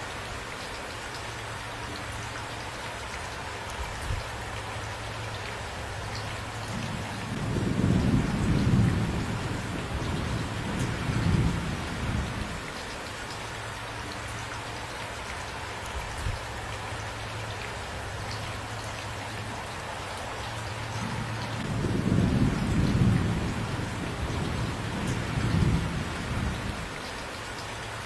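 Steady rainfall with two long, low rolls of thunder, the first about a quarter of the way in and the second about three quarters of the way in, each lasting about five seconds and louder than the rain.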